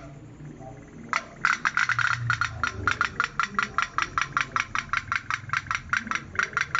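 Pop-pop toy boat (a candle-heated steam boat) putting along, a fast, even popping at about seven or eight pops a second that starts about a second in.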